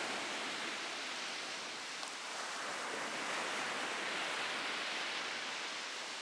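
Sea waves breaking and washing onto a sandy beach: a steady rush of surf.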